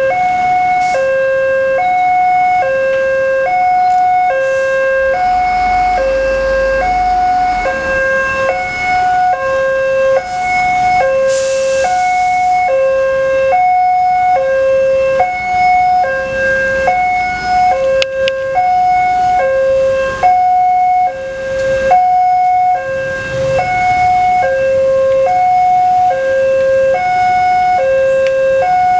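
Railway level-crossing warning alarm: an electronic two-tone signal that alternates evenly between a lower and a higher tone, about one low-high cycle every second and a half, sounding without a break. Passing road traffic runs fainter underneath.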